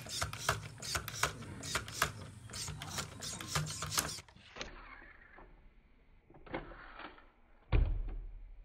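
Plastic lever of a Fantastic Gymnastics toy clicking rapidly as it is pumped to swing the gymnast figure around the bar, about four clicks a second, stopping about four seconds in. Near the end a single dull thump as the figure lands on the table.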